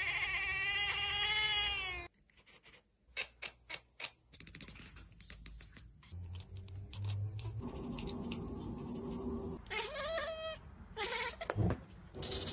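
A cat's long drawn-out yowl lasting about two seconds. Then come a series of sharp clicks and softer sounds, and shorter meows near the end.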